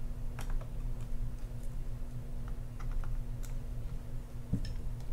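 Small screwdriver backing out the tiny side-plate screws of an Abu Garcia Ambassadeur 6500CL baitcasting reel: scattered faint clicks and ticks of the metal tip on the screw heads. A steady low hum runs underneath.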